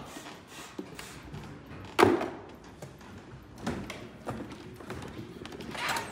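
Flight-case lids being lifted and set down, with a sharp thump about two seconds in and a smaller knock a little under two seconds later.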